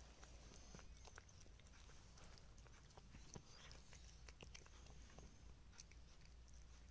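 Faint, irregular small clicks of a kitten chewing and nibbling.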